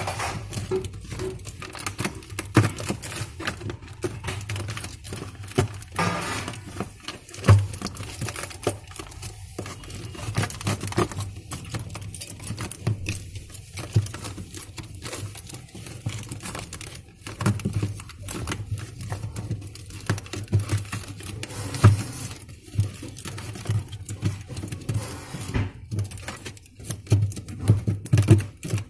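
Irregular taps, knocks and rustles of things being handled inside an opened refrigerator freezer compartment, with a few sharper knocks.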